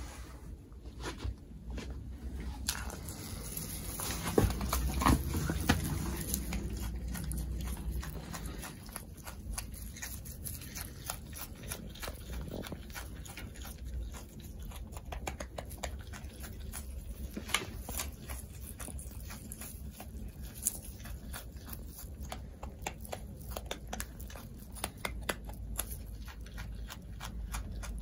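Parma wallaby munching fresh pea shoots: a long run of quick, crisp chewing clicks with the leafy stems rustling as it bites and tugs at them.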